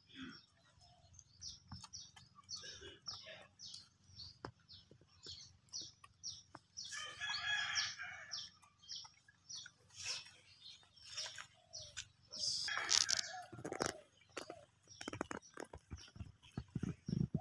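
A rooster crowing twice, about seven seconds in and again about five seconds later, over many short bird chirps. Near the end come several sharp knocks.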